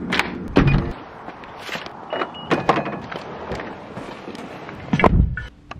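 Car door shut with a heavy thump, then clicks and two short high beeps, and a second, louder door thump near the end.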